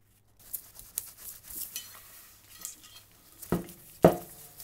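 A cloth rag rubbing over the cast-iron body of a Stanley No. 7 jointer plane, wiping off residue, with newspaper rustling under it. Two sharp knocks near the end as the heavy plane body is handled, the second the loudest.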